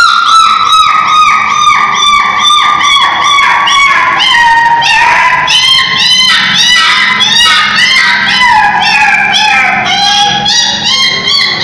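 A puppy crying in a rapid, unbroken run of high-pitched yelps, about four a second, the pitch sagging slightly over the run.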